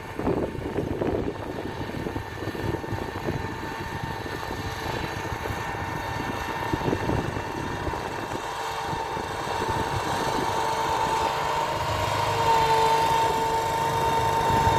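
Tulip-topping machine running as it drives down the rows, cutting the flower heads off the tulips. Its engine hum grows steadily louder as it comes closer, with a steady tone standing out near the end.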